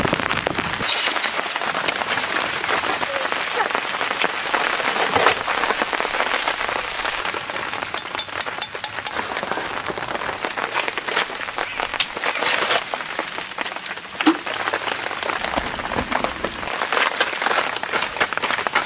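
Rain falling steadily, with many individual drops striking a surface close by in sharp, irregular taps.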